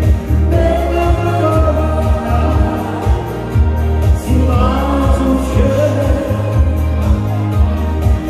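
Pop song with singing over a steady, pulsing bass beat.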